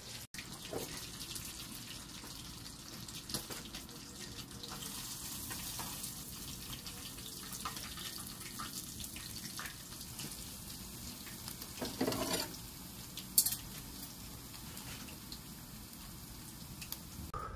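Hot oil sizzling steadily in a frying pan as a whole tilapia fries over a gas burner. A few short clicks and scrapes of a metal spatula against the pan, the loudest about twelve seconds in.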